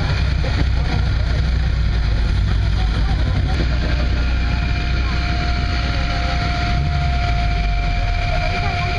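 Classic rally cars' engines running at low speed as the cars creep forward, a steady low rumble under voices of the onlookers. About halfway through a steady high tone starts and holds.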